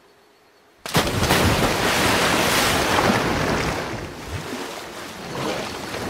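Rushing, splashing white water of a waterfall, cutting in suddenly about a second in after a short silence and easing off in the second half.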